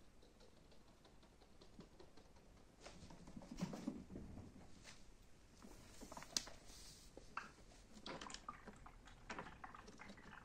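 Faint rustling and scattered light clicks of a pet rat rummaging in a plastic bowl of food pellets and the fabric bedding, starting about three seconds in.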